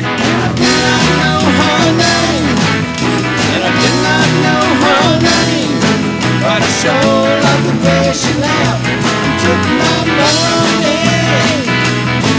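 Rock band playing: guitars, bass guitar and drum kit, with a lead line above them that bends and slides in pitch.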